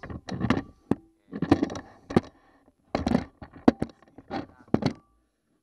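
A person talking in short phrases that are hard to make out, then the sound cuts off to dead silence about five seconds in.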